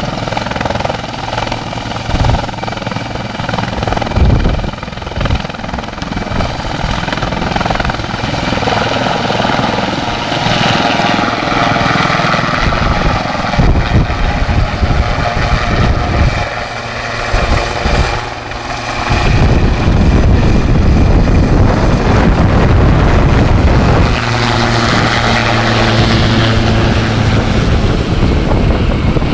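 Helicopter flying by, its rotor and engine noise loud and rough throughout, growing louder about two-thirds of the way in.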